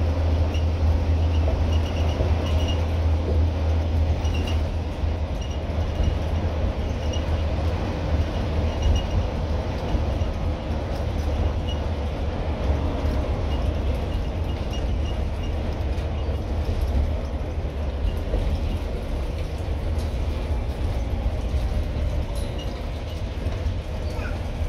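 Scania N230UD bus's engine and road noise heard from inside the passenger cabin while it travels at speed: a steady deep drone that eases slightly in level towards the end.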